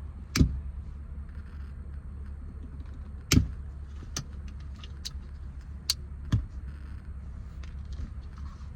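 Scattered sharp clicks and knocks from hands working the shifter parts and a pocket knife in the car's cabin, about six in all, the two loudest near the start and about three seconds in, over a steady low hum.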